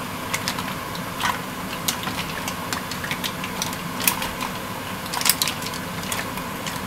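Mussel shells clicking and clattering against each other and a wooden spatula as they are stirred in a frying pan: irregular sharp clacks over a steady hum.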